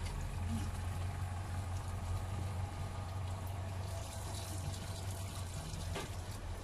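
Kitchen tap running steadily onto vegetables in a sink as they are rinsed by hand, over a steady low hum. A sharp click about six seconds in.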